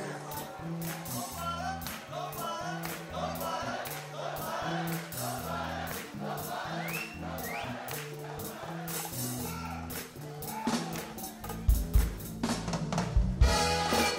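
Live soul band playing: a stepping bass line under evenly repeating tambourine-like percussion strikes, with voices singing. About eleven seconds in, heavier drum hits come in and the music gets louder.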